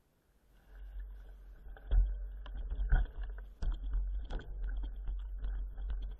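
Wind buffeting the microphone of a camera on a mountain bike riding fast downhill: a low rumble that sets in about a second in, with irregular knocks and rattles as the bike goes over bumps.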